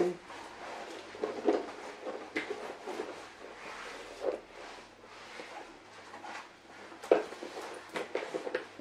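Clothing rustle and scattered clicks as a bomber jacket and a chain-strap shoulder bag are put on and adjusted, with one louder click about seven seconds in.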